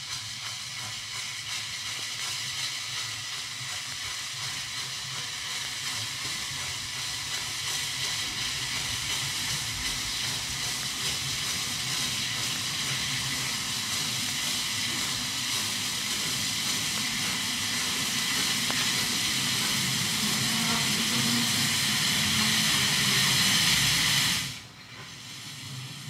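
Steady hiss from a Norfolk and Western Y6 steam locomotive and its train while coupling up, growing slowly louder and then cutting off suddenly near the end.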